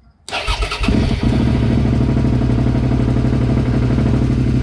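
Suzuki SV motorcycle's V-twin engine being started: it fires a moment in, catches within about a second and settles into a steady idle.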